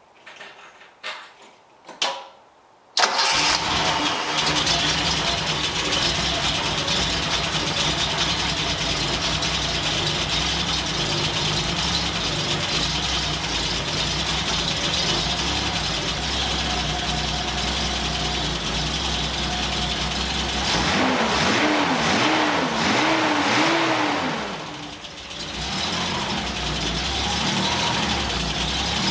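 1976 Datsun 280Z's 2.8-litre straight-six catching abruptly about three seconds in, then idling steadily. Past two-thirds through it is revved up and down several times, dips briefly, and settles back to a steady idle.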